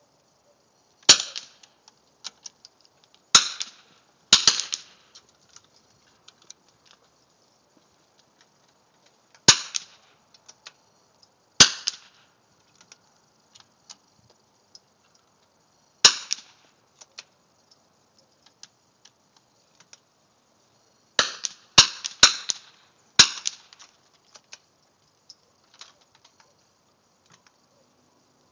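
Shots from .22 rimfire benchrest rifles: about ten sharp cracks, each with a short echo tail, at uneven intervals, with several in quick succession about three-quarters of the way through.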